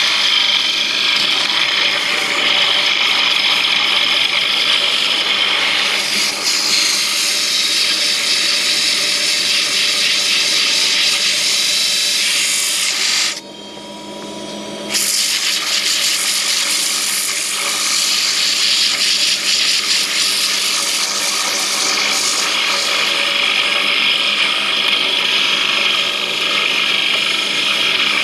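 Wood lathe running while a turning tool works the spinning wood: a loud, steady scraping hiss. It breaks off for about a second and a half midway, leaving only the faint hum of the lathe, then picks up again.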